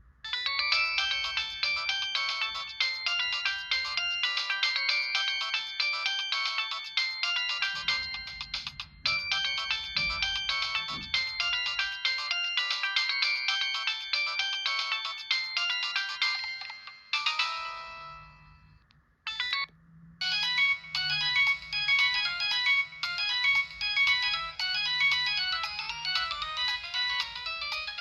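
Samsung SGH-T809 phone playing polyphonic ringtones through its small speaker: a fast synthesized melody, thin with no bass, that ends about 17 seconds in, a short decaying chime, a click, then a second synthesized ringtone starting about 20 seconds in.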